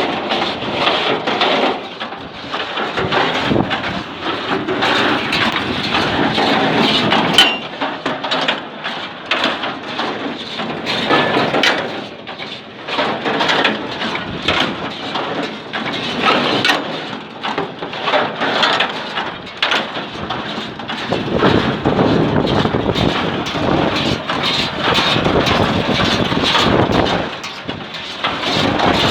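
Massey Ferguson 20-8 square baler running, a steady mechanical din with frequent irregular clattering knocks.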